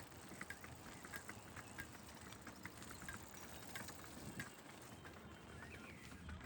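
Faint outdoor ambience with scattered short, high chirps at irregular intervals and a brief falling whistle near the end, likely small birds calling.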